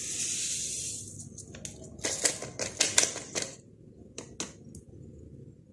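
A brief hiss of vanilla sugar pouring out of a paper sachet onto the sugar and eggs in a bowl. From about two seconds in comes a quick run of sharp clicks and taps, then two more a second later.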